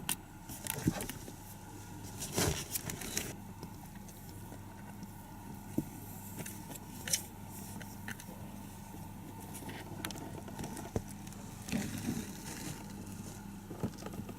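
Kittens scuffling and playing: scattered rustles, claw scratches and light taps, busiest in the first three seconds and again around seven and twelve seconds in, over a steady electrical hum.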